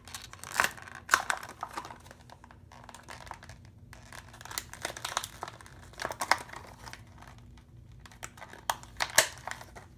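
Plastic packaging of a new faucet cartridge being worked open by hand: irregular crinkling and crackling with scattered sharp clicks, the loudest about half a second, a second and nine seconds in.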